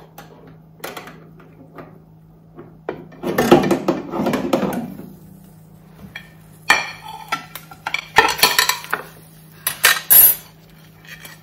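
Metal clinks, scrapes and clanks as a roast chicken on a rotisserie spit is lifted out of an air fryer oven with the rotisserie lifting tool and set down on a china plate. A longer rattling scrape comes about three seconds in, and a run of sharp clanks follows in the second half.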